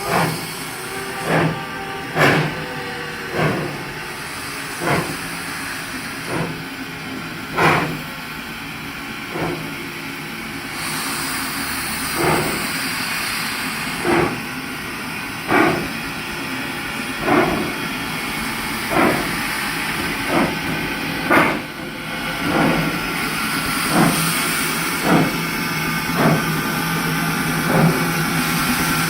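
1891 Baldwin 2-6-0 steam locomotive working up a grade, its exhaust chuffing slowly and evenly, about one beat every second and a half. A steady steam hiss joins about a third of the way in.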